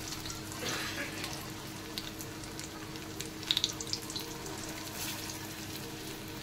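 Vegetable kofta deep-frying in hot oil in a kadhai: a steady sizzle with fine crackling. A few light clicks of a metal spatula against the pan come about halfway through.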